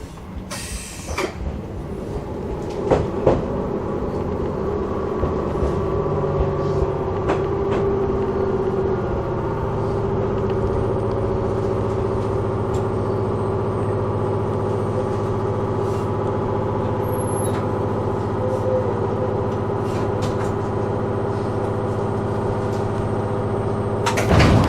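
Chichibu Railway electric train running along the track, heard from the cab: the wheels click over rail joints in the first few seconds, then a steady running drone. A louder sound breaks in just before the end.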